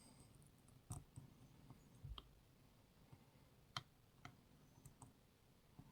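Faint, scattered clicks of a lock pick working the pins inside a CES pin-tumbler lock, with one sharper click a little past halfway.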